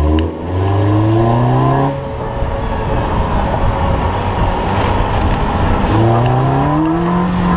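A Scion FR-S / GT86's 2.0-litre flat-four engine accelerating. Its pitch climbs for about a second and a half, gives way to a rush of wind and tyre noise, then climbs again near the end.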